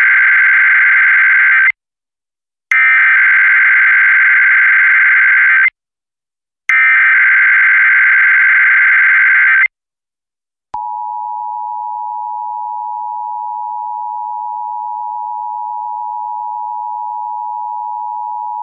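Emergency Alert System SAME header: three burps of warbling digital data, each about three seconds long and a second apart, encoding a Required Monthly Test. About eleven seconds in, the steady two-tone EAS attention signal starts and holds.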